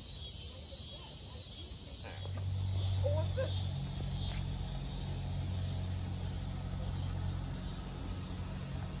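Evening crickets and insects chirping in a steady, even chorus. About two seconds in, a steady low hum comes in and stays, louder than the insects.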